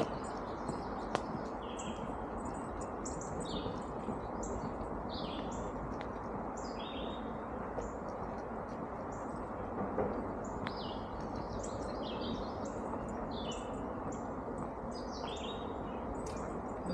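Wild birds chirping, a steady run of short high notes about one or two a second, over a constant low rushing background noise.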